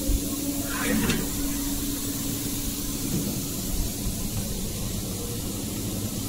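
Steady hiss and hum of a powered-on laser welding machine, with a low steady tone that stops about halfway. A brief faint glide sounds about a second in.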